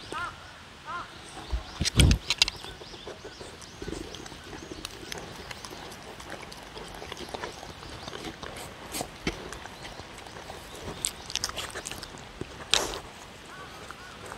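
A dog eating from a wooden bowl close to the microphone: chewing and crunching, with sharp clicks and knocks against the bowl. The loudest knocks come about two seconds in and again near the end.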